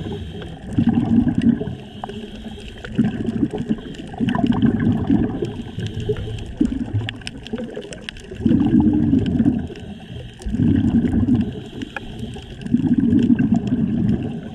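Exhaled air bubbling out of a scuba diver's regulator, recorded underwater: six low, gurgling bursts of about a second each, one per breath, with quieter gaps between them.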